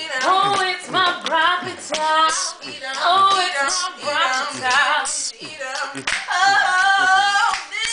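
Girls singing a cappella with a few hand claps, ending on several held notes.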